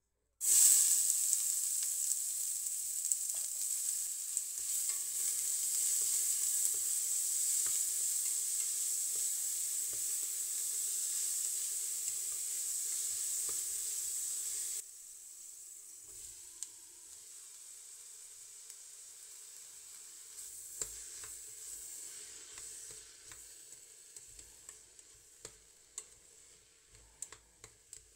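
Diced onions dropped into hot oil in a stainless steel pot, sizzling loudly at once and stirred with a spatula. About fifteen seconds in the sizzle drops suddenly to a softer frying hiss, with the spatula scraping and ticking against the pot as chopped peppers are stirred.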